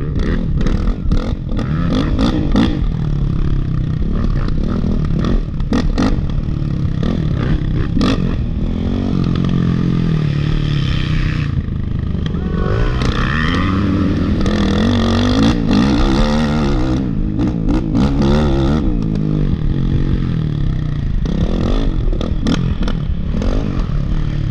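Dirt bike engine revving up and down as the bike is ridden over rough off-road ground, heard from the rider's back. Frequent sharp knocks and clatter from the bike hitting the terrain run through it.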